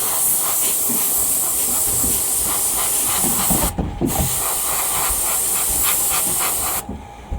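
Airbrush spraying acrylic paint: a steady hiss of air and paint. It breaks off briefly about four seconds in and stops near the end.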